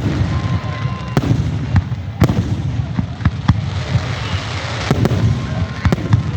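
Fireworks display: irregular sharp bangs of shells bursting, several a second at times, over a continuous low rumble, with a crowd's voices underneath.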